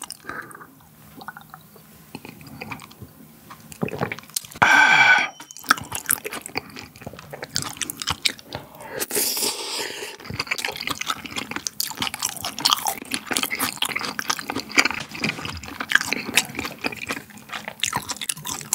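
Close-miked mouth sounds: a sip of strong liquor from a shot glass, then a loud voiced 'ah' about five seconds in. After that comes steady wet chewing and smacking of soft raw beef, with many small clicks from the metal tongs on the plate.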